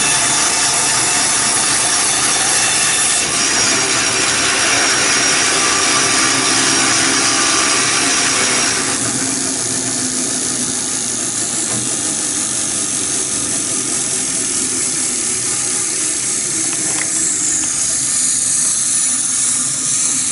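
Band saw with a freshly sharpened blade cutting through hardwood; about nine seconds in the cut ends and the saw keeps running unloaded, a little quieter.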